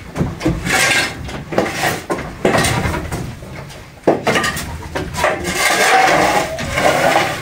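Shovel scraping across a concrete barn floor, scooping up straw and manure in several strokes, with a longer, louder scrape from about four seconds in.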